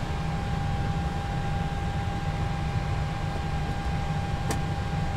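Steady flight-deck background noise of a parked Boeing 737: a low rumble with fan and air-conditioning hiss and a thin steady whine. A single sharp click sounds about four and a half seconds in.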